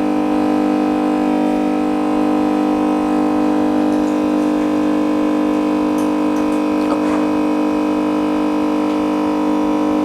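Steady machine hum from the LCD separator machine's built-in vacuum pump: one constant low-pitched drone with many overtones, with a single small click about seven seconds in.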